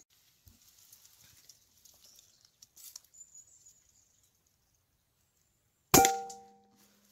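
A single shot from a P15 air rifle about six seconds in: one sharp crack followed by a metallic ring that dies away over about a second.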